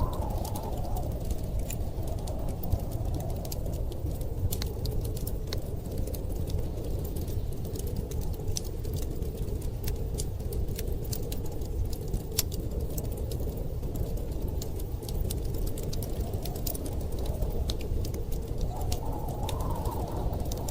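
Wood fire crackling with frequent small sharp pops over a steady low rumble of storm wind; the wind swells in a gust near the end.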